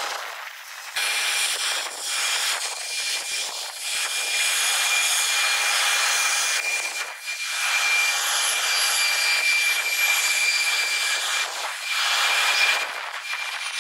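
Jet airliners' turbofan engines running at takeoff power on the runway, sped up with the fourfold timelapse so the roar sits high, with a steady high whine. The sound breaks off and jumps at sudden cuts about a second in, around seven seconds in and near twelve seconds in.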